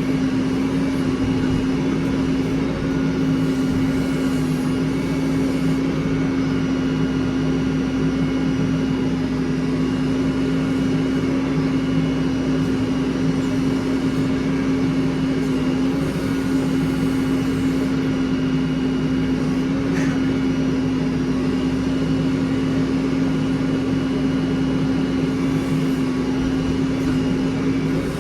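Heavy diesel engine running at a steady speed, a constant hum that holds its pitch throughout.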